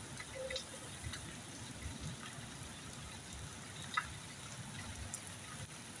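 Steady rain falling and splashing on wet ground, a continuous hiss, with a few faint short clicks and one sharp click about four seconds in.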